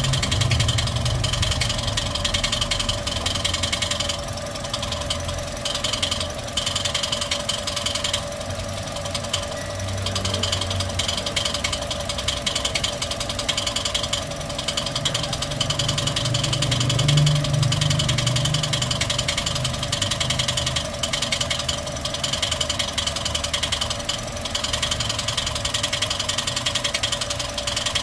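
Toyota 1NR-FE 1.3-litre four-cylinder engine running at idle with the abnormal noise the mechanic is chasing, a steady ticking clatter over the engine's hum. The low hum swells briefly about two-thirds of the way through.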